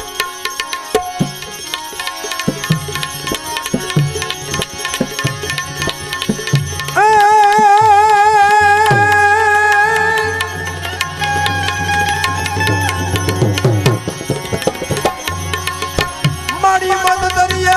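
Gujarati bhajan music: tabla playing a steady rhythm under melodic accompaniment. About seven seconds in, a loud, long-held note with vibrato comes in over it for a few seconds, and a wavering melody returns near the end.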